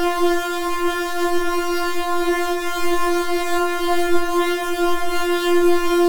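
Synthesizer holding one steady, buzzy note rich in overtones, with no change in pitch.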